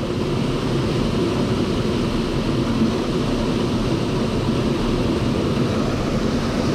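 Steady rushing of water pouring out through a sluice gate and churning into white foam, a constant even roar with no breaks.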